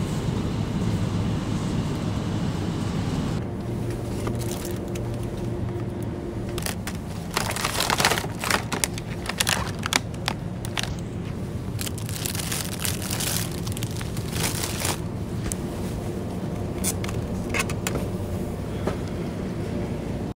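Plastic produce packaging crinkling and crackling as it is handled, in a run of sharp rustles between about 7 and 15 seconds in, over a steady low hum.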